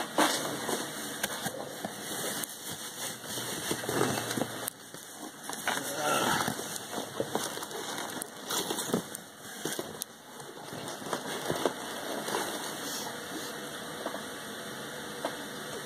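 Rustling and crackling of packing peanuts in a cardboard shipping box as hands dig through them for the next beer, with scattered small clicks and knocks.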